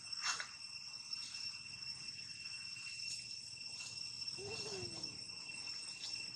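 Insects keep up a steady, high-pitched drone, with a few faint clicks. About four and a half seconds in comes one short, low sound that rises and then falls.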